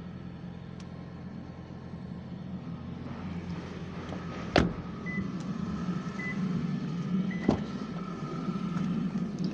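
Car doors of a Toyota Prius: two sharp clunks about three seconds apart, over a steady low hum, with a few faint short beeps in between.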